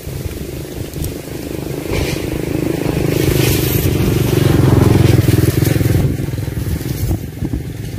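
A motor engine hums steadily, growing louder to a peak about five seconds in and then easing off as it passes. Light scraping of a cord being pulled through a wire fan cage runs alongside.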